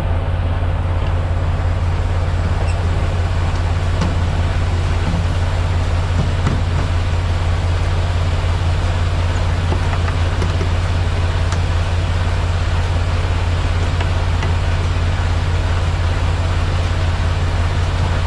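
Semi-truck diesel engine idling steadily close by, a constant low rumble, with a few light metallic clicks as the air-hose gladhands and electrical cord are handled and coupled to the trailer.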